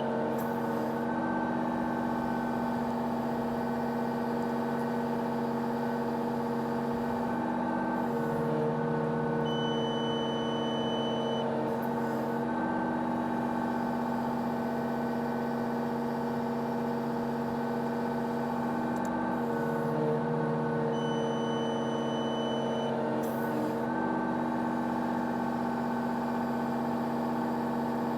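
Excavator diesel engine running steadily at about 1900 rpm as the boom cycles down and up. The engine note shifts under hydraulic load every few seconds. A high electronic beep from the onboard scale sounds for about two seconds twice, about a third of the way in and again about three-quarters through. The beeps mark a lift pass being recorded for calibration.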